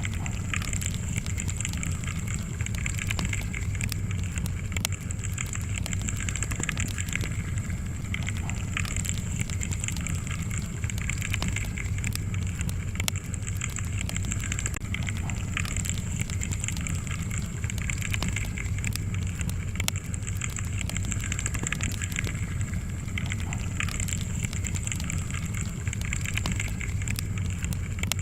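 Wood fire burning in a fireplace: a steady low rumble and hiss with many small irregular crackles and pops from the burning logs.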